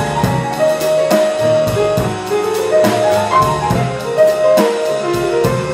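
Live jazz band playing an instrumental passage with no vocals: held melody notes over piano and drum kit, with regular cymbal and drum strokes.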